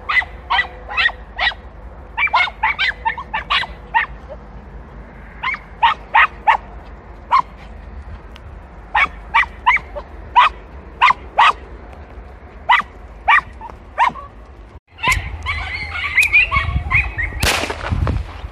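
Young podenco hounds yapping in quick runs of short, high-pitched yelps: the cry of hounds working a scent in bramble. About fifteen seconds in the calls break off and give way to brush rustling, with a loud swish near the end.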